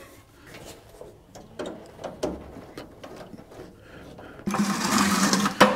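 A lower radiator hose clamp being loosened: a few light tool clicks and scrapes, then near the end a small power driver whirs steadily for about a second, backing the clamp off.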